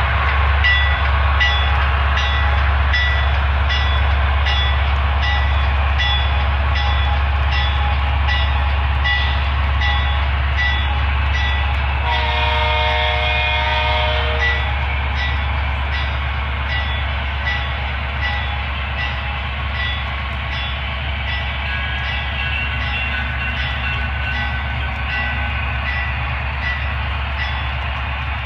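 Model diesel locomotive sound from DCC sound decoders, with the Broadway Limited Rolling Thunder system adding a deep, steady engine rumble. Over it runs a rhythmic clickety-clack of wheels on rail joints, about two clicks a second, and about twelve seconds in a multi-note locomotive air horn sounds for about two seconds.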